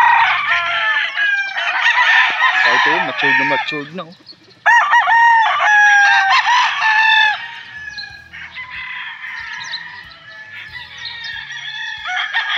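Gamecock roosters crowing, several overlapping at first. One loud, long crow comes about five seconds in, followed by fainter crows from birds further off.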